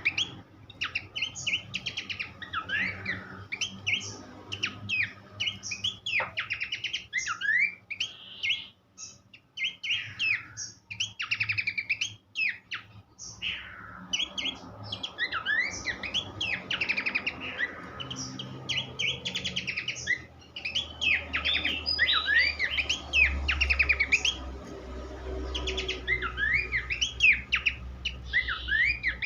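Pelanduk semak babbler singing: dense, fast runs of short sweeping whistled notes in chattering phrases, with brief pauses. A low hum sits underneath in the second half.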